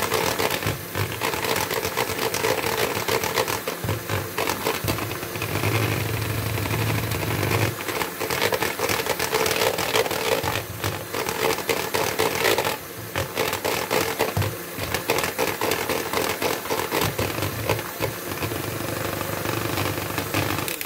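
Electric hand mixer running steadily, its twin wire beaters whipping thick apple puree in a bowl, with many small clicks and rattles as the beaters knock against the bowl.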